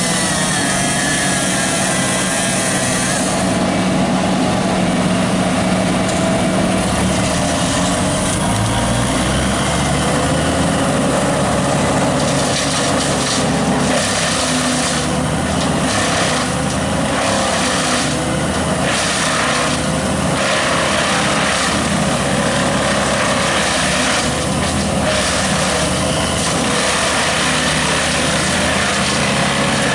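Small engine-driven tree-removal machinery running continuously, its engine pitch shifting up and down, with noisy surges that come and go through the second half.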